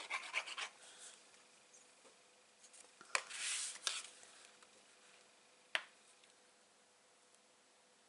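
Card stock being handled as a layered card front is attached to its base: a short rustle at the start, a sharp tap about three seconds in followed by a brief rustle, and another sharp tap near six seconds.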